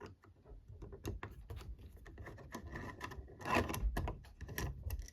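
Light clicks, taps and scraping of a Cawi 1839 single-bit safe lock being handled, with a louder rubbing scrape about three and a half seconds in.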